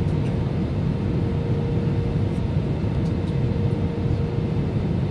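Steady cabin noise inside an Airbus A320 in flight: a low, even rumble of engines and airflow with a faint steady hum running through it.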